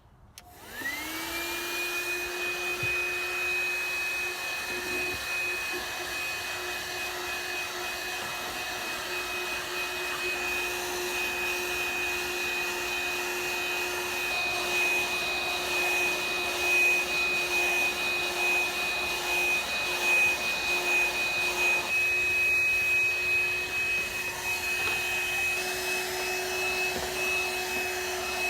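THISWORX 12 V handheld car vacuum switched on, its small motor spinning up to a steady high whine within about a second, then running with a constant suction rush.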